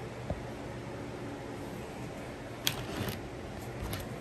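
Steady low room hum with a few short clicks and bumps of a phone being handled, one about a third of a second in and a cluster near three seconds.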